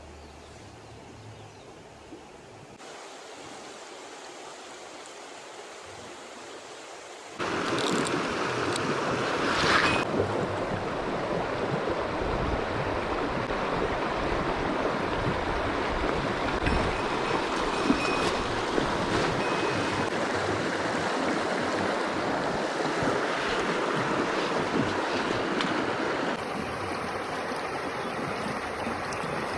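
Steady rush of mountain-stream water, much louder from about seven seconds in and a little softer near the end.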